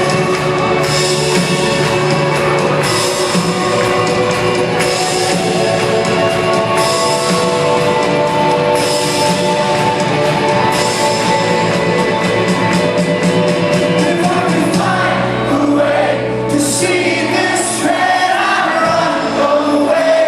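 Rock band playing a song with a singing voice over it, a cymbal strike about every two seconds and a run of quick hits a little past halfway.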